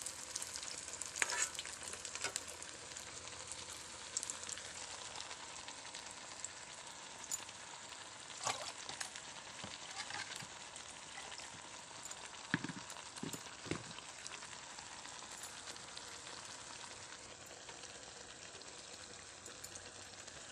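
Food sizzling steadily as it fries in hot oil in a pan, with a few sharp clicks and knocks scattered through.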